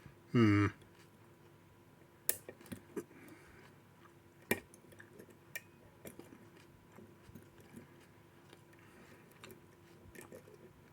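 Lock picking in a padlock: small, irregular metal clicks and taps as the pick works the pins under tension, some sharper than others. About half a second in there is one short voice sound, like a brief hum or grunt.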